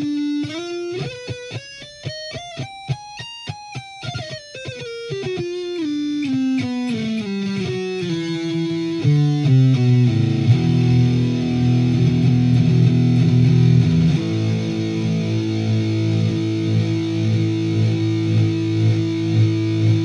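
Electric guitar played through a Wampler Tumnus Deluxe overdrive pedal. A quick single-note run climbs and comes back down, then low overdriven chords ring out and get louder, changing chord about two-thirds of the way through, with repeated strums near the end.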